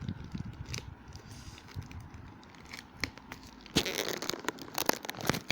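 Parcel packaging being handled: scattered rustles and clicks, then a louder burst of crinkling and tearing near the end.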